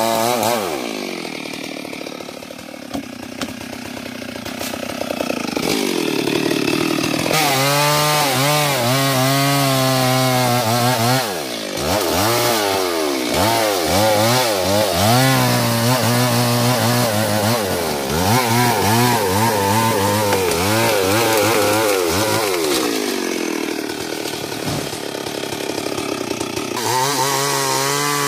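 Stihl MS 382 two-stroke chainsaw cutting through a sengon trunk. The engine drops back for the first few seconds, revs up about seven seconds in and runs at full throttle in the wood, its pitch wavering under load, with a few short let-offs of the throttle.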